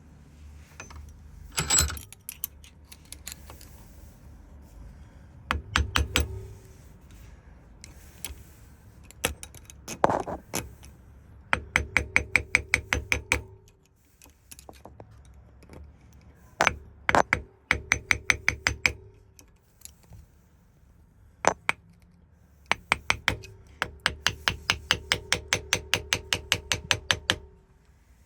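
Metal tools working on a Ford lock cylinder: scattered knocks and clicks, and twice a run of quick, even ticks, about five a second, with a faint metallic ring.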